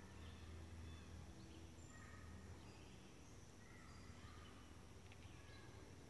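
Faint forest ambience: small birds give short, scattered chirps every second or so over a steady low rumble.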